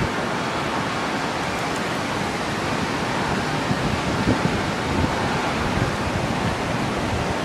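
Steady rush of ocean surf breaking on the beach, mixed with wind buffeting the microphone in uneven low gusts.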